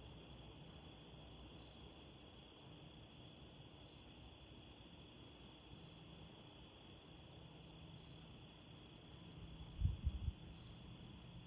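Crickets chirping faintly and steadily, with short repeated chirps about once a second. Near the end, a few brief low rumbles of wind buffeting the microphone.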